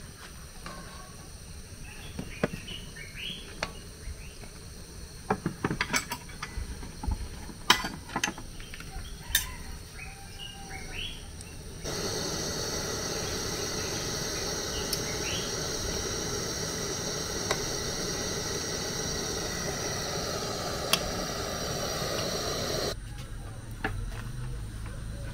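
Puff puff balls deep-frying in hot oil in a metal pan, a steady sizzle, with sharp clicks of a metal slotted spoon and tongs against the pan in the first half. Midway the sizzle gets much louder for about ten seconds, then drops back suddenly.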